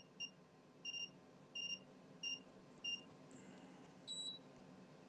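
Feeltech FY6600 function generator's key beeper giving short, high beeps about every half second, six in all, as its output is stepped up. About four seconds in comes one slightly higher-pitched beep from the Siglent oscilloscope as its controls are worked.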